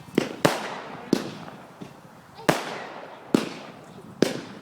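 Fireworks bursting: six sharp bangs at uneven intervals, each with a short fading echo.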